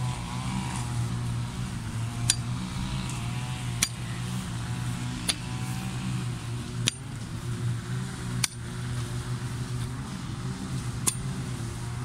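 A pickaxe striking into grassy soil six times, about every second and a half, each a sharp clink, over the steady drone of motorised brush cutters mowing grass in the background.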